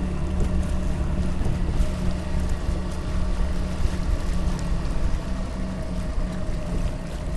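Small boat's engine running steadily under way, with wind and water noise over it.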